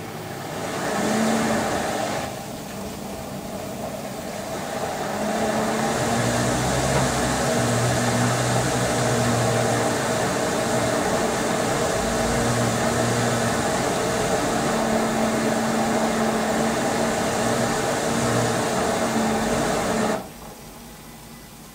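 LG Inverter Direct Drive washer-dryer turning its drum in the wash cycle, the motor humming under the swish of water and a soaked duvet. A short turn comes first, then a longer one of about fifteen seconds that stops abruptly near the end.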